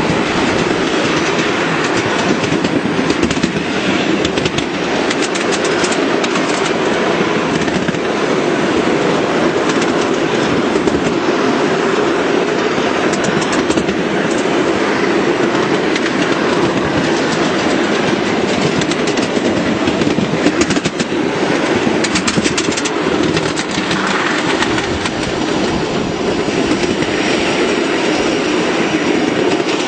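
Miniature railway train running along ground-level track: a steady rolling rumble of small steel wheels on the rails, with scattered clicks.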